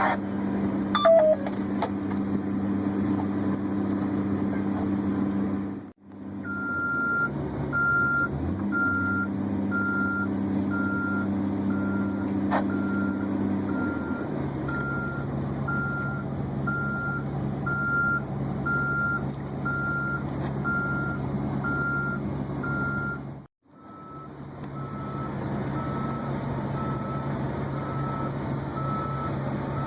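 A heavy machine's engine running steadily, with a backup alarm beeping at an even rate of about three beeps every two seconds. The sound drops out abruptly twice, about six seconds in and again near the last quarter, and the beeping carries on more faintly after the second break.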